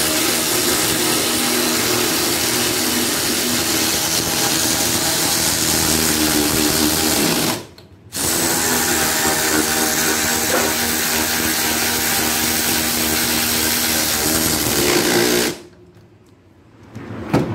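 Hand-held power ratchet whirring as it runs nuts onto the upper strut mount studs of a 2005 Chevy Cobalt. It runs steadily for about seven seconds, stops for a moment, then runs again for about as long.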